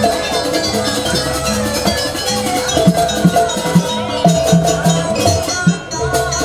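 Live jaranan gamelan music: drums and tuned bronze percussion playing a steady, driving rhythmic pattern with repeated low notes and a sustained melody line above.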